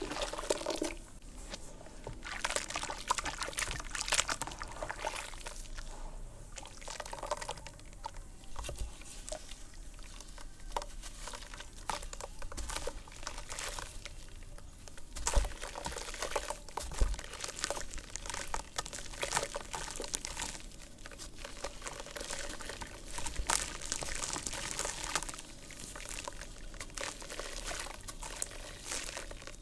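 Dry red dirt crumbling and crackling as water is poured onto it. The irregular crunches run over a pouring, trickling hiss, with one sharper crunch about fifteen seconds in.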